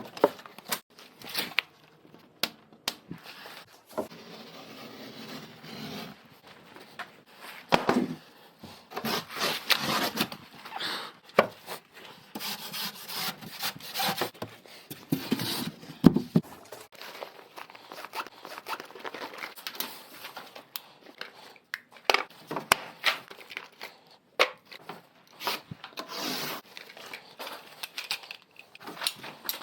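Irregular rubbing and scraping noises, some like tearing, with scattered sharp clicks.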